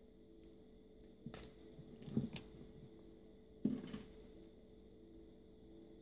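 A few short, faint clatters and knocks of things being handled, about a second in, twice around two seconds and once near four seconds, over a low steady hum.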